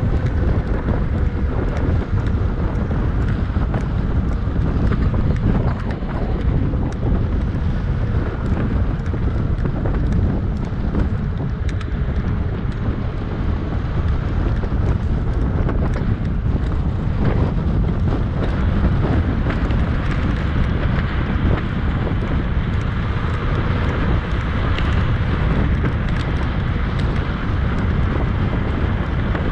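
Wind buffeting the microphone: a steady, loud low rumble with faint scattered clicks.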